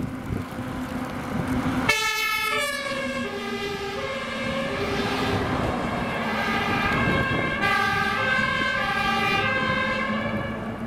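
Fire engine two-tone siren (German Martinshorn) switching on abruptly about two seconds in and alternating steadily between a low and a high note as the trucks pass. Before it, truck engine and road noise with a steady low hum.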